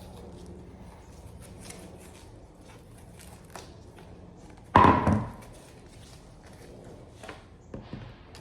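Hands working on a pickleball paddle's grip: faint rustling and light clicks, with one loud knock about five seconds in that rings briefly and dies within half a second, and a few small clicks near the end.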